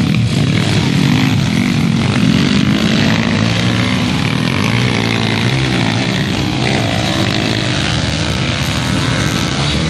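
Several pit bike engines racing together, revving up and down in overlapping rises and falls of pitch.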